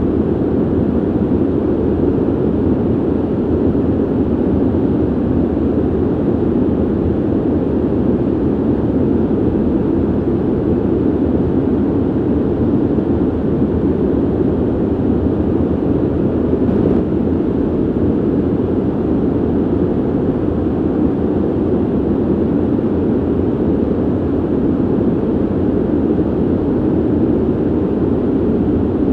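Ventilation noise: a steady, dull rush of air with most of its weight low down, unchanging in level.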